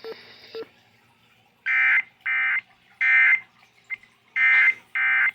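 Emergency Alert System digital data bursts: the buzzy, warbling two-tone code sent over the radio once an AMBER Alert message has finished, marking the end of the message. There are five short bursts of about half a second each, the first three close together and the last two after a short pause.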